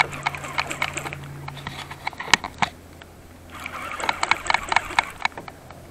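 Round baitcasting reel being cranked to bring in a hooked blue catfish: two runs of rapid clicking from the reel, the second starting about three and a half seconds in.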